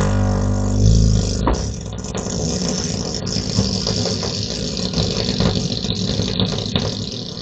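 A long, low, pitched fart, loudest in the first second and fading out near the end.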